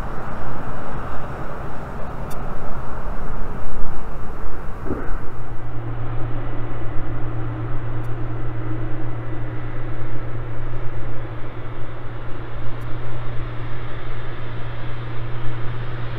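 Boeing 777 freighter's GE90 turbofans running at taxi power: a steady broad jet rumble. About five seconds in, a strong steady low hum joins it as the aircraft taxis onto the runway.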